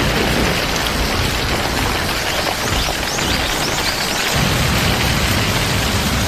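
Heavy rain falling steadily, a dense hiss.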